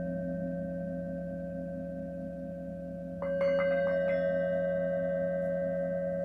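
Singing bowls ringing with several sustained tones and a steady pulsing waver; about three seconds in, four or five quick strikes add brighter, higher ringing notes that carry on over the hum.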